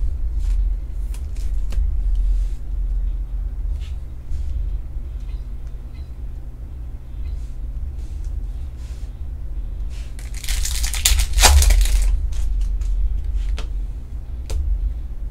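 Trading cards and plastic sleeves being handled, with light scattered clicks and rustles. About ten seconds in comes two seconds of loud crinkling as a foil trading-card pack is torn open. A steady low rumble runs underneath.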